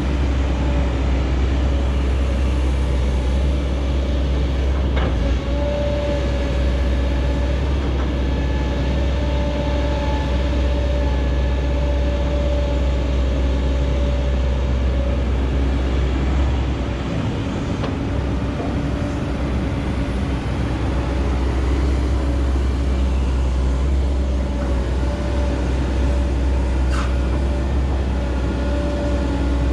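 Heavy diesel earthmoving machinery (excavators and dump trucks) running steadily, a deep rumble under a steady engine hum, easing briefly about two-thirds of the way in.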